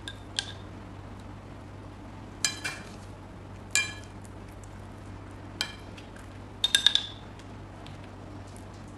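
Metal spoon clinking against a glass baking dish while liquid cheese is spread over flatbread: scattered short, ringing clinks, with a quick run of three or four about three-quarters of the way through.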